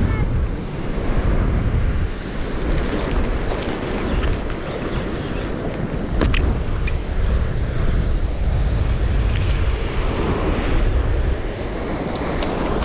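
Ocean swells breaking and washing over a rock ledge, with strong wind buffeting the microphone in a deep, uneven rumble. A few short clicks are heard about midway through.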